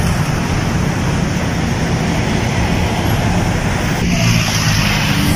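Road traffic on a city avenue: a steady wash of car engine and tyre noise with a low engine hum. About four seconds in, a deeper engine note comes in as a vehicle passes close by.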